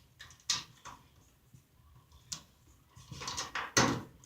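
A 1/4-inch socket ratchet wrench clicking in short spurts, with a few sharp metal knocks, while a wire terminal is worked onto a dryer terminal-block screw; the clicking is busiest near the end.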